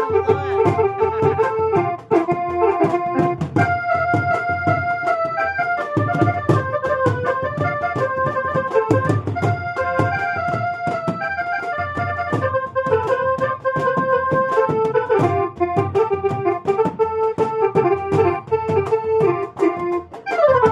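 A ringtone tune played as a stepping melody of held notes on a keyboard-like instrument over a steady beat.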